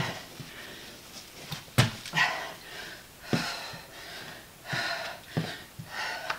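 A person breathing hard through a set of burpees and forward lunges, with four heavy huffing exhales and several thuds of feet and hands landing on the floor between them.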